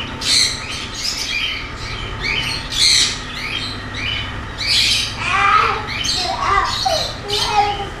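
Many aviary birds squawking and chattering, harsh calls following one another without a break.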